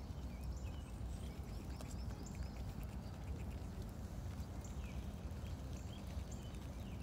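Small birds chirping, short high notes and quick slurred whistles scattered throughout, over a steady low rumble.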